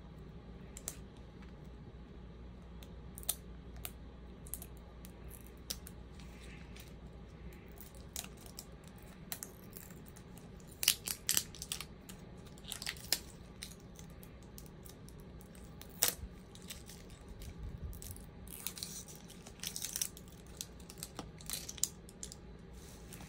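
A small plastic toy egg and its wrapping handled and picked open by hand: scattered light clicks, crinkling and short tearing sounds, over a low steady hum.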